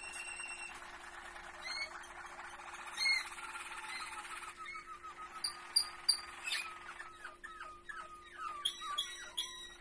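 Domestic canaries singing: rolling trills in the first half, then fast sweeping notes and sharp repeated chirps.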